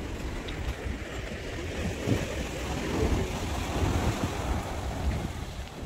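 Waves breaking and washing over a rocky shore, the surf hiss swelling midway, with wind rumbling on the microphone.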